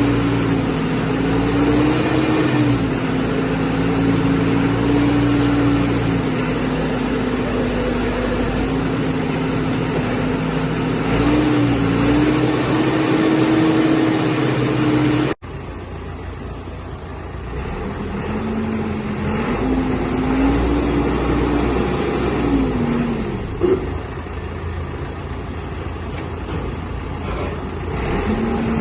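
Caterpillar 416C backhoe loader's diesel engine running, its pitch wavering slowly up and down. About halfway through, the sound cuts off abruptly and resumes quieter. There is one short sharp clank about two-thirds of the way in.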